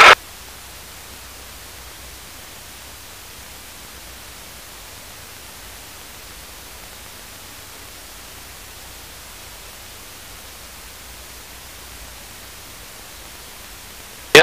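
Steady, even static hiss from the aircraft headset intercom's audio feed, with no engine or voices coming through.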